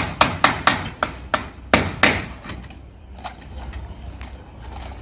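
A hammer driving nails into the frame of a wire-mesh door: a fast run of about nine sharp strikes over two seconds, then a few lighter taps.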